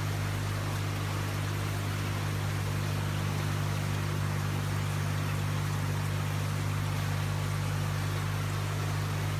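Water running steadily down the glass panel of a floor-standing waterfall cascade fountain, an even trickling rush, over a steady low hum.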